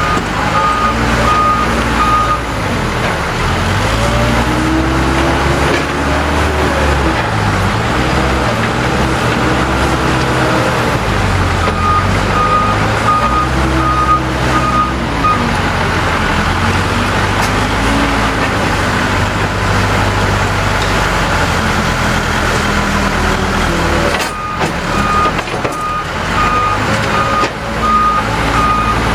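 Case 580L backhoe's diesel engine working, its pitch rising and falling as the machine digs and loads. A reversing alarm beeps in three spells: near the start, from about twelve seconds in, and again in the last few seconds.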